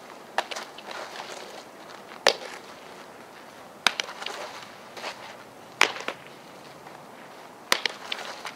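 A softball popping into leather gloves and a catcher's mitt during catching and throwing drills: sharp pops about every two seconds.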